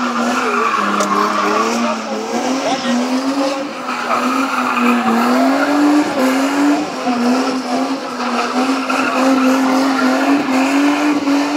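BMW E30 drifting in circles: the engine is held high in the revs, its note wavering up and down as the throttle is worked, over the continuous squeal and hiss of the rear tyres sliding on the asphalt.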